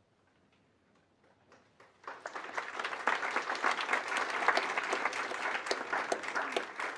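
Audience applauding, the clapping starting about two seconds in and continuing strongly.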